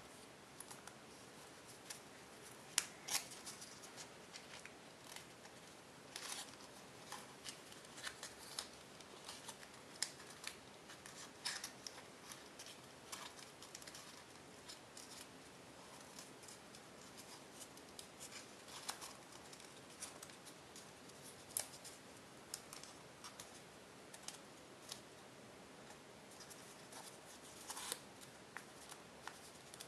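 Tissue foil origami paper crinkling and crackling as fingers pinch and crease it into folds: quiet, irregular clicks and crackles.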